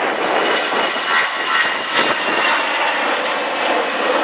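Airbus A319's twin jet engines at takeoff thrust as it rolls down the runway and lifts off: a loud, steady rushing noise with a faint high whine.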